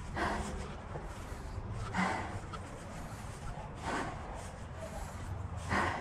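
A cyclist breathing hard, with a noisy breath about every two seconds, over a steady low rumble.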